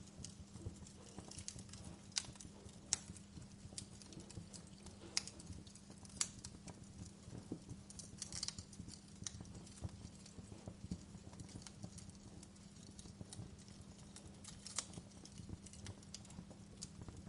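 Fire crackling in a fireplace: irregular sharp pops and snaps over a low steady hum.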